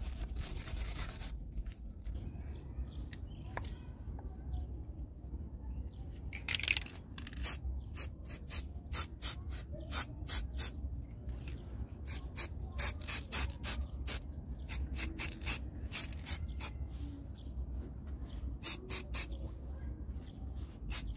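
Hand wire brush scrubbing the metal rear drum-brake parts in quick scratching strokes, two to three a second, starting about six seconds in.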